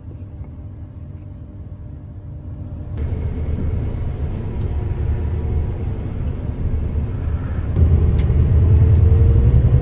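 Bus engine and road rumble heard from inside the cabin as the bus pulls away. It grows louder as the bus gathers speed, with a jump in level about three seconds in.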